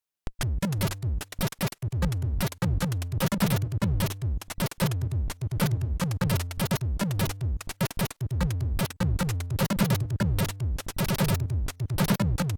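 Commodore 64 SID-chip chiptune music: a fast beat of noisy hits and falling-pitch synth drums over a bass line, starting almost at once after a brief silence.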